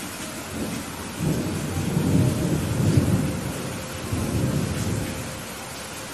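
Steady heavy rain hissing, with a roll of thunder that rumbles in about a second in, swells and then dies away near the end.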